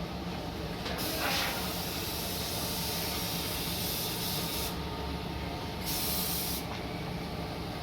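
Compressed-air paint spray gun hissing as it is triggered: one long spray pass of about four seconds, then a short burst, over a steady low hum.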